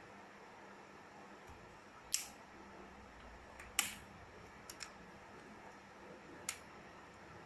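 Sharp plastic clicks and snaps from Rubik's Cube pieces being twisted and broken with cutting pliers: a handful of separate clicks, the loudest about four seconds in, with a quick double click just after it.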